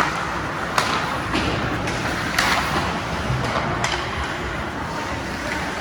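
Ice hockey play in a rink: several sharp knocks of stick, puck and boards over steady arena noise. The loudest knock comes about halfway through and rings briefly.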